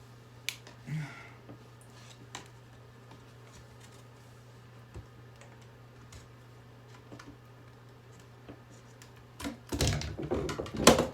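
Scattered small clicks and taps of plastic hair-dryer parts being handled over a faint steady hum, then a loud spell of clattering and handling knocks near the end.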